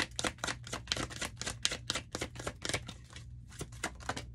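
A tarot deck being shuffled by hand: a rapid run of crisp card clicks, about five or six a second, with a short break a little after three seconds in.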